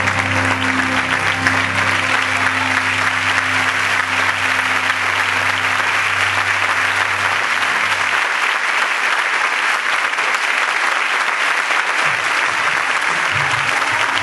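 Audience applauding over background music. A held low chord in the music fades away about eight seconds in, leaving mostly applause with a few low notes near the end.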